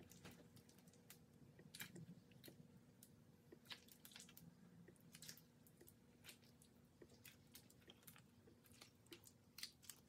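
Faint wet squishing and crackling of honey-laden beeswax comb being crushed and squeezed by gloved hands, as small irregular sticky clicks and pops.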